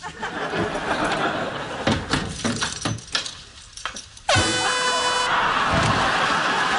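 A single air-horn blast, a sudden, steady, piercing tone about a second long, a little over four seconds in.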